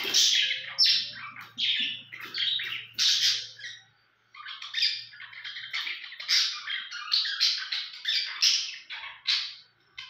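Budgerigars chattering in a rapid run of short, harsh squawks and chirps, with a brief pause about four seconds in.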